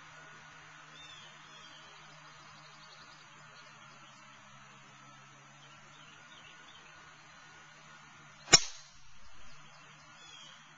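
A golf driver striking a teed-up ball: one sharp, loud crack late on, with a brief swell of noise just after it. Faint bird chirps come and go before it.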